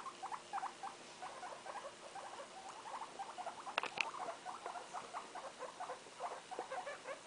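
Guinea pigs making a rapid run of short, soft squeaking calls, several a second, with one louder squeak about four seconds in.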